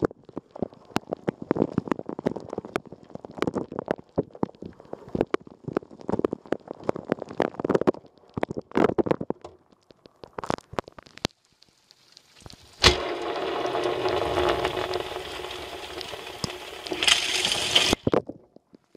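Water spraying and splashing inside a running Rosenlew dishwasher, an irregular patter of drops and splashes against the tub. After a sharp click about thirteen seconds in, a steady rushing spray runs for about five seconds and then cuts off suddenly.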